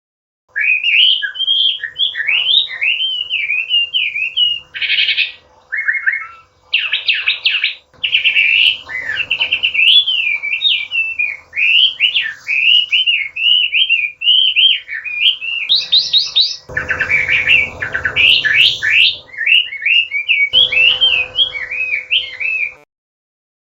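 Chinese hwamei singing a long, loud, unbroken song of rapid whistled phrases that swoop up and down, broken by a few fast trills. The song starts just after the beginning and stops shortly before the end.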